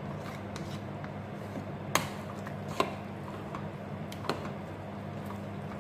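A handful of light clicks and knocks of a wooden spoon and a red-handled utensil against an aluminium pot while thick, cheesy pasta is stirred, over a steady low hum.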